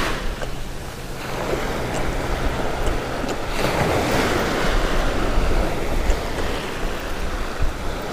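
Surf washing up onto the beach, with wind buffeting the microphone.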